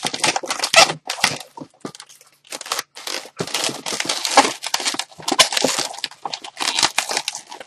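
Inflated latex twisting balloons squeaking and rubbing against each other and the hands as they are twisted into a pinch twist for the monkey's ear: many short irregular squeaks and crackles.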